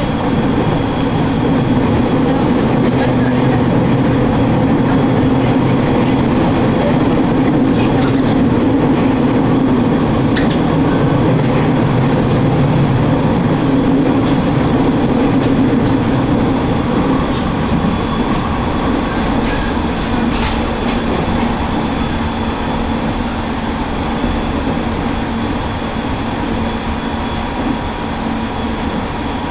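Train running at speed, heard from inside the carriage: a steady rumble of wheels on the rails, louder while it runs through a tunnel in the middle and easing a little over the last ten seconds.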